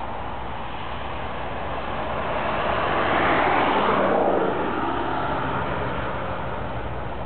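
Diesel-electric freight locomotive running as it approaches hauling a long container train, a steady rumble with a low engine drone. The noise swells louder about three seconds in and eases back after about four and a half seconds.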